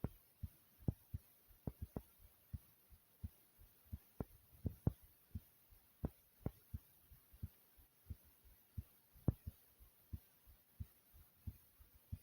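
Human heartbeat recorded close up, thumping hard: a steady run of short, low thumps, about three a second, some much louder than others.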